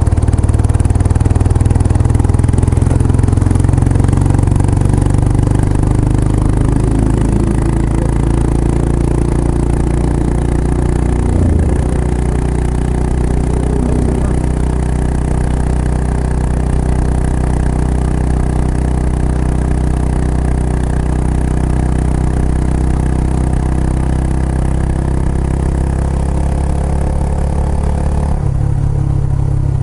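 Kawasaki Estrella's single-cylinder engine, breathing through an aftermarket Yamato muffler, running steadily under way, its pitch drifting up and down with changes of speed and shifting near the end.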